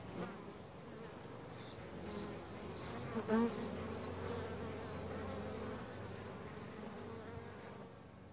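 Bees buzzing: a steady hum of many bees, with a louder swell about three seconds in, fading out near the end.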